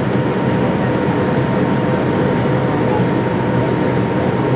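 Steady cabin noise of an MD-82 airliner climbing out after takeoff: the rear-mounted Pratt & Whitney JT8D turbofans and rushing airflow make an even roar with a constant hum at a couple of fixed pitches.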